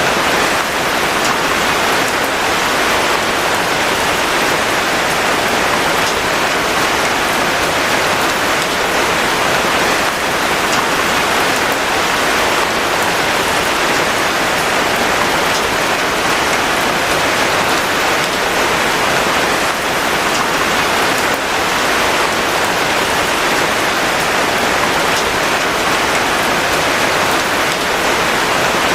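Steady heavy rain falling on a surface, an even hiss with faint scattered drop ticks.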